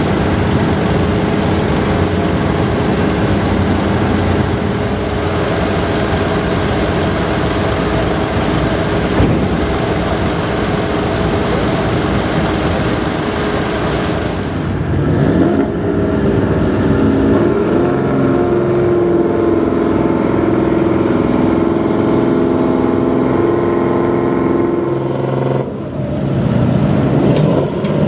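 Boat engine running steadily, a loud drone with a steady hum of tones. About halfway through the engine note changes to a clearer set of higher tones, and it shifts again near the end.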